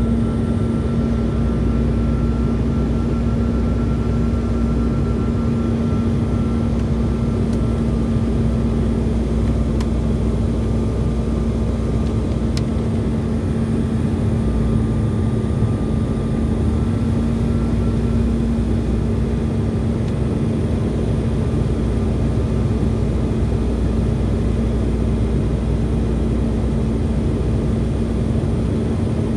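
Jet airliner cabin noise in flight, heard from inside the cabin: a steady rush of engine and airflow noise with a constant low hum and a faint higher whine.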